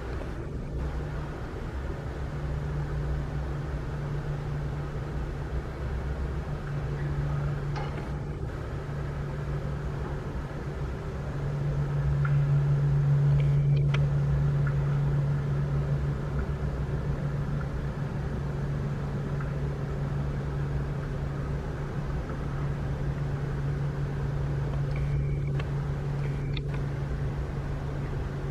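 Boeing 787-9 Dreamliner's Rolls-Royce Trent 1000 jet engines running at taxi power: a steady low drone with a hum. The drone swells and grows louder about twelve seconds in, then eases back.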